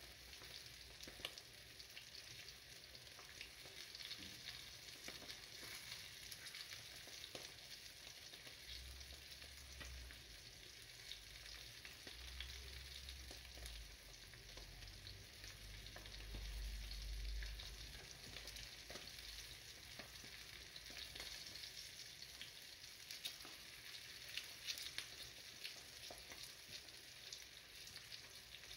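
Sole fillets sizzling in oil in a frying pan, a steady fine crackle and spatter, well along in frying and on the verge of burning. A low rumble swells briefly past the middle.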